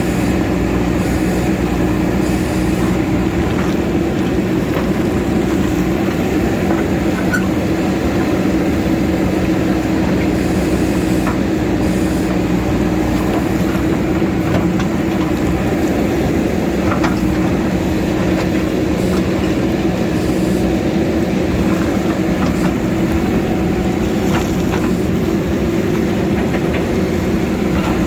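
JCB backhoe loader's diesel engine running steadily, with scattered light clanks as the bucket works rock.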